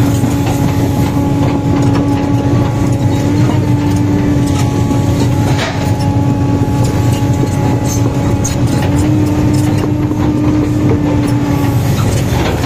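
Sumitomo 490 hydraulic excavator running steadily under the operator's control, its diesel engine and hydraulics loud and close, with a steady whine over the engine sound and a few faint ticks.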